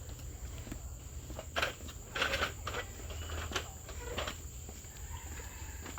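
Footsteps on a forest trail: a few irregular steps, loudest about a second and a half to two and a half seconds in, over a steady high-pitched insect drone.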